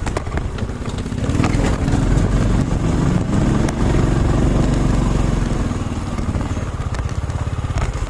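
Motorcycle engine pulling under load as the bike climbs away from a rail crossing, getting louder over the first few seconds. Early on there are sharp knocks and rattles as the bike jolts over the rough, uneven crossing.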